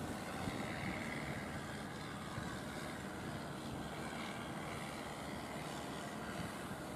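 Motors of several wooden fishing boats running steadily as they head out to sea, mixed with sea and wind noise.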